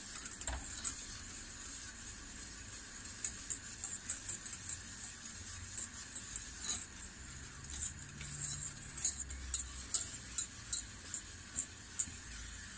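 A wire whisk stirring mandarin juice in a stainless steel pot, its wires ticking and scraping against the metal in an irregular run of small clicks.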